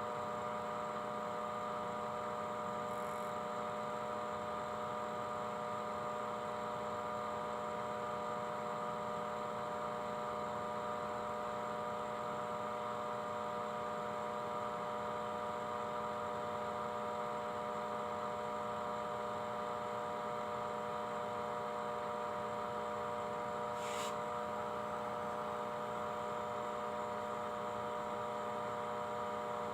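A steady electrical hum made of several fixed tones that does not change, with one faint click near the end.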